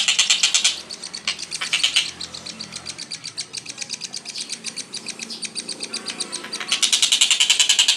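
Songbird giving a rapid-fire burst of sharp, evenly repeated chirps, about ten a second. It is loud at the start, falls to a quieter chatter for most of the stretch, and turns loud again near the end.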